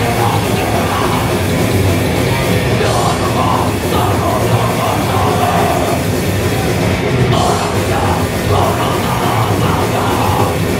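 Thrash metal band playing live and loud, with distorted electric guitars and drums pounding without a break.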